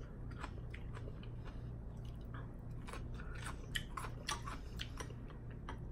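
Close-miked chewing of wonton soup, with irregular wet mouth clicks and smacks.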